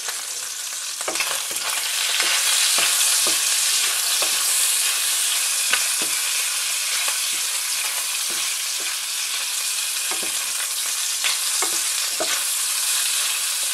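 Diced bacon sizzling in a frying pan while a wooden spatula stirs it, scraping and clicking against the pan at irregular moments. The sizzle grows louder about a second in, once the stirring starts.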